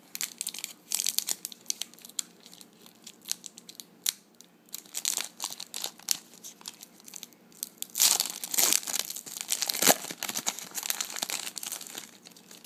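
Foil wrapper of a trading-card pack being torn open and crinkled: an irregular run of crackles and rustles, loudest about eight to ten seconds in.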